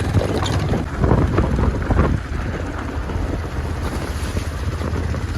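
Motorcycle engine running under way with wind buffeting the microphone, and a few knocks and rattles from the rough track in the first couple of seconds.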